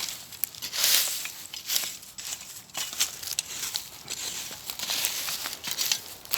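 Irregular crunching and rustling of dry forest litter (leaves and twigs) underfoot, with sharp little cracks mixed in.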